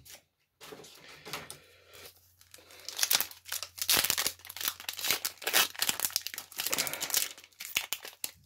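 Foil wrapper of a Pokémon Sword and Shield booster pack being torn open and crinkled by hand: irregular crackles that start faintly about a second in and get busier and louder from about three seconds in.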